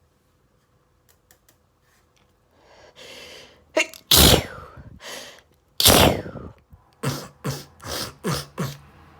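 A person sneezing in an allergy sneezing fit: a breathy intake about three seconds in, then two loud sneezes about a second and a half apart, followed by four shorter, quieter bursts about half a second apart.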